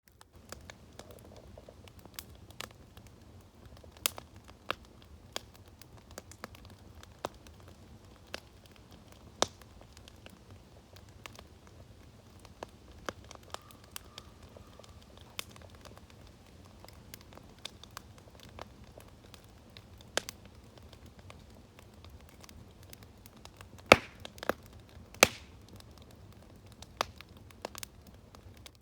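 Wood fire crackling, with irregular sharp pops over a low steady rumble and two loud cracks near the end.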